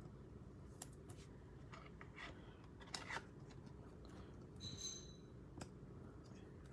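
Faint scrapes and light clicks of a trading card being slid into a rigid plastic top loader and handled, with a brief high squeak of plastic about two-thirds of the way through.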